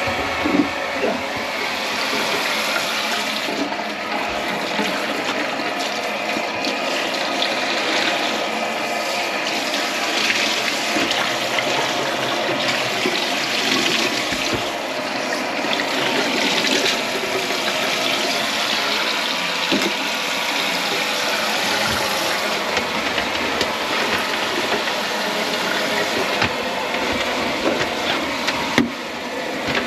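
Water running steadily into the kitchen sink and down the drain, with a steady mechanical hum underneath.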